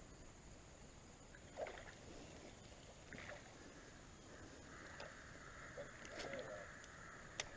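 Faint creek ambience with a few soft water sloshes about one and a half, three and six seconds in, and a single sharp click near the end.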